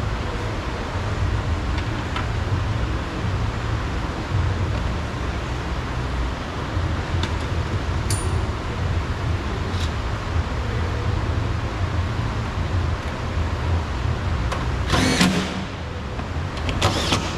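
Steady outdoor rumble and hiss, like wind and distant traffic, with a few light clicks and a louder brief rattle about fifteen seconds in and again near the end.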